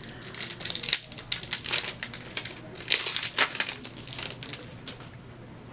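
Foil trading-card booster pack wrapper crinkling and crumpling as it is handled and opened, a dense run of irregular crackles that dies down about five seconds in.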